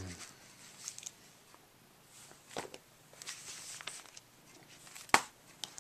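Glossy magazines being handled and swapped by hand: soft paper rustles with a few sharp taps, the loudest about five seconds in.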